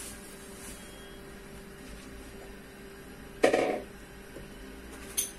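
Quiet steady hum with faint room noise. It is broken by a brief louder sound about three and a half seconds in and a short click near the end.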